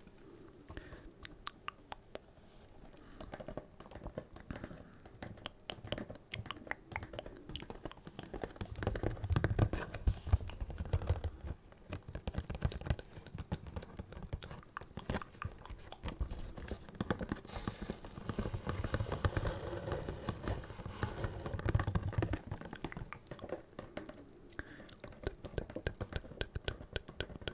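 Fingers tapping and scratching on a Funko Pop's cardboard box and clear plastic window held close to the microphone: a dense run of small crisp clicks. Heavier low thumps of handling come about nine to eleven seconds in and again about eighteen to twenty-two seconds in.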